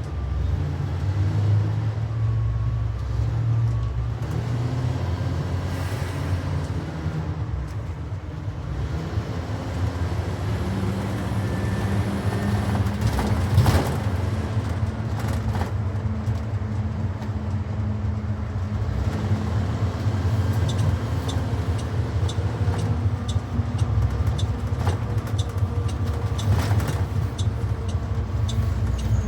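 2019 Blue Bird Vision propane school bus driving, its engine and road noise heard from inside the bus, with the engine pitch rising about ten seconds in.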